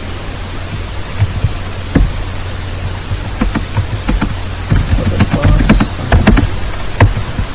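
Computer keyboard being typed on in scattered clicks, with a cluster of keystrokes in the second half, over a steady electrical hum and hiss.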